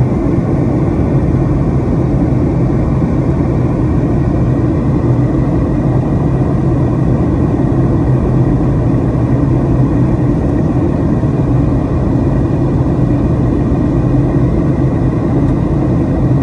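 Steady jet engine and airflow noise inside an airliner cabin in flight: an even, loud low drone with a faint steady whine above it.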